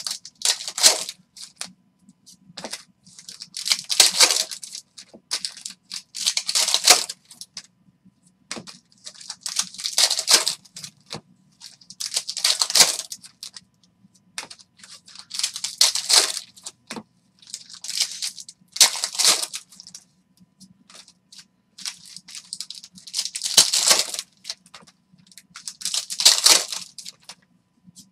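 A foil trading-card pack is torn and crinkled open at the start. The cards are then slid one by one across the stack, giving a dry swish about every three seconds. A faint low hum runs underneath.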